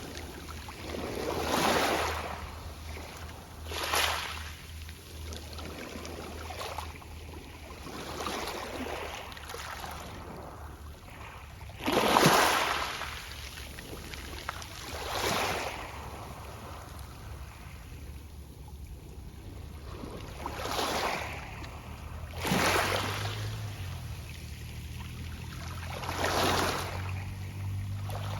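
Small sea waves washing onto a pebble beach every few seconds, with pebbles rustling as each wave surges and drains back. The loudest wave breaks about twelve seconds in. A low, steady drone comes in near the end.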